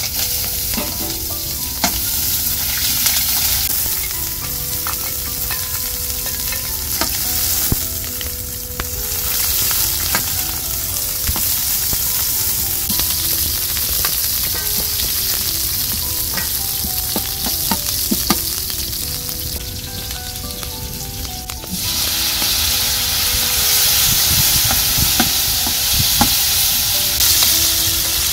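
Chopped onions frying in oil in a wide metal pan, sizzling steadily, with a metal spatula stirring and scraping against the pan. The sizzling gets louder about two-thirds of the way through.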